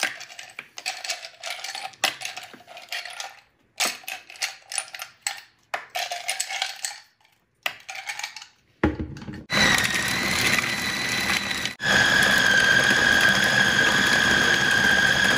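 Ice cubes clattering into a plastic food-processor bowl for several seconds. About nine seconds in, the food processor's motor starts and runs with a steady whine, grinding chilled minced pork, ice and starch into a paste for Thai pork sausage. The whine breaks off briefly near twelve seconds, then runs on steadily.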